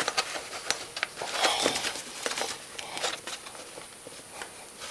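ATV plastic body panels creaking, scraping and clicking irregularly as they are pushed and worked by hand to seat a stubborn piece that won't go down.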